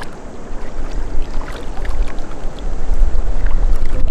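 Wind buffeting the microphone in a heavy, uneven rumble, over the wash of shallow seawater among rocks.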